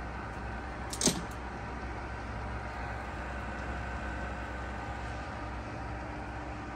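Enshu F2 horizontal milling machine running steadily, its table power feed traversing at maximum feed rate, with a steady hum. One sharp click about a second in.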